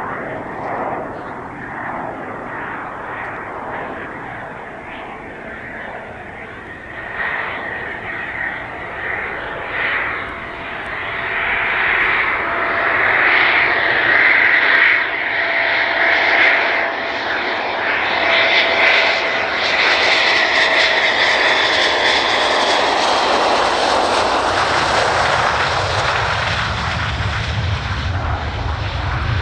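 Military jet aircraft engines whining and growing steadily louder as the aircraft approaches, with a deep rumble coming in near the end.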